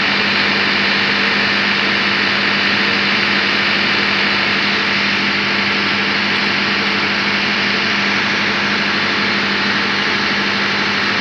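Engine-room machinery running steadily: a constant loud drone with a strong low hum and no change in pitch or speed.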